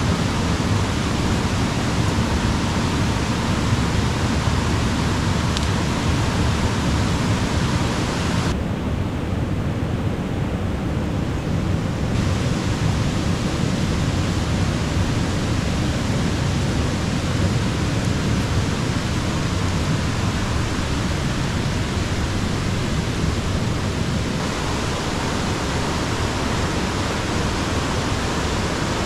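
Steady noise of a river flowing at the cooking spot on its bank, strongest in the low end. The higher hiss drops away for a few seconds about a third of the way in.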